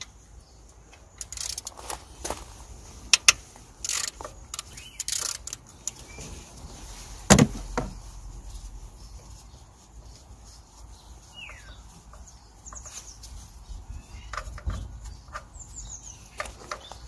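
Scattered clicks and knocks of metal hand tools in a car's engine bay as a bolt is worked on with a long T45 Torx extension; the loudest knock comes about seven seconds in. A bird chirps faintly a few times in the second half.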